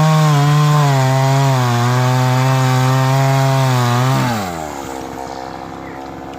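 Chainsaw running at high revs while cutting wood, its pitch wavering a little. About four seconds in, the engine speed falls away and it drops back to a quieter idle.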